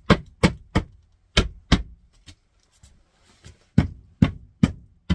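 Engineered hardwood floor plank being tapped into place: sharp wooden knocks in three quick groups of about three.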